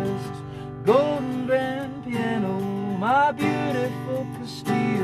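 Strummed acoustic guitar with a voice singing over it.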